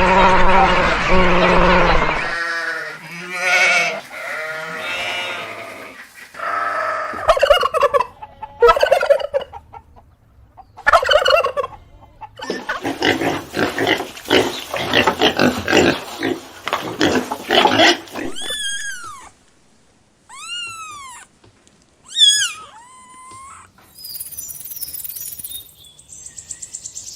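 Farm poultry calling in a string of separate clips: clucking and gobbling calls, with a dense stretch of many birds calling at once, then several short, high, downward-sweeping chirps near the end.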